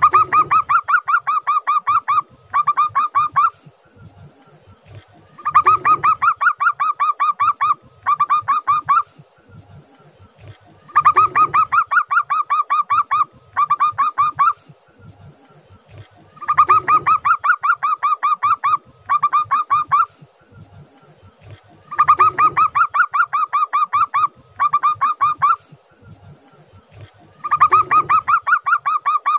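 Local zebra dove (perkutut) singing its rapid staccato cooing song. There are six phrases about five and a half seconds apart. Each phrase is a long run of quick notes, then a short break, then a shorter run.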